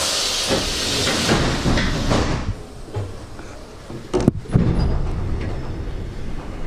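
Pneumatic doors of an EN57 electric multiple unit closing: a hiss of air for about two and a half seconds, then two sharp knocks a little after four seconds in as they shut.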